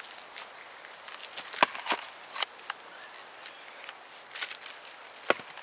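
A log stuck on the bit of a Gränsfors Bruk Hunter's Axe is swung down onto a wooden chopping block to split it: a sharp heavy knock about a second and a half in, a second one near the end, and lighter knocks and scuffs in between.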